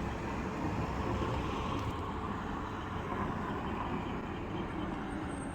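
Distant air-raid siren sounding, a faint, slightly wavering wail, over steady street and wind noise.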